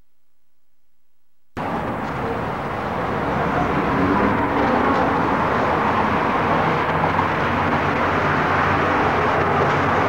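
Silence, then about a second and a half in a steady, dense rumbling din cuts in abruptly and holds: the background noise of a large, echoing hall.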